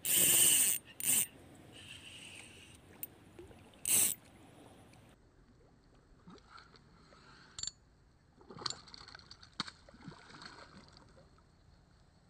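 A hooked peacock bass splashing and thrashing at the surface during the fight, in loud short bursts at the start, about a second in and about four seconds in. After that only faint scattered splashes and ticks.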